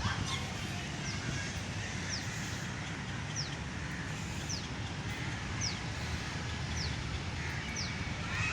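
A bird calling with a short, high, falling note, repeated evenly about once a second, over a steady outdoor background hum.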